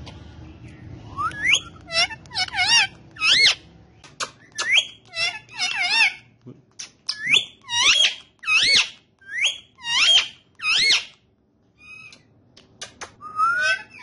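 Indian ringneck parrot giving a rapid run of short, shrill whistled calls, each sweeping up and wavering in pitch. It pauses briefly near the end, then calls again.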